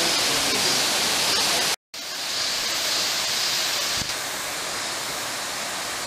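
A waterfall rushing steadily. The sound cuts out for a moment a little under two seconds in, then carries on slightly quieter.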